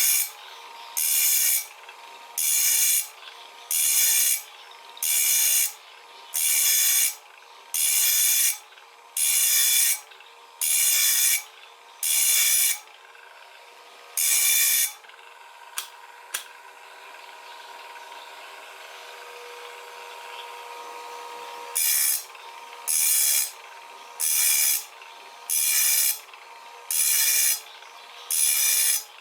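Wipro PPM-03 electric sharpening machine running with a steady hum while its grinding wheel grinds the teeth of a circular saw blade one at a time: short grinding strokes about once a second. About halfway through the strokes stop for several seconds, with two light clicks, then start again at the same pace.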